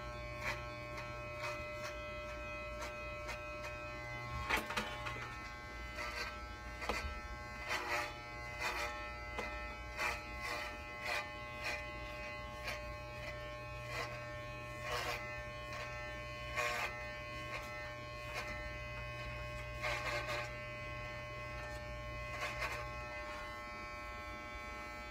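Corded electric hair clippers with a guard comb running with a steady buzz as they cut through a short synthetic wig, with short scratchy rasps at irregular intervals as the blades pass through the hair.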